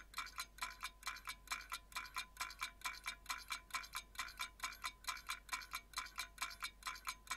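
Countdown timer sound effect: fast, even clock-like ticking, several ticks a second, each tick with a short bright ringing tone.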